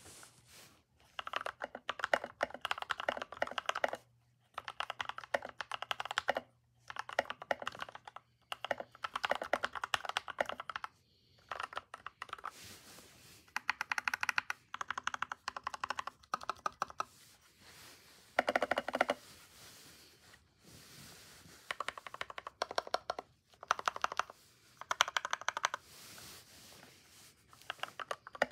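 Typing on an EPOMAKER GK61XS 60% mechanical keyboard fitted with lubed InvoKeys Matcha Latte switches: runs of rapid key clacks, each a second or two long, broken by short pauses.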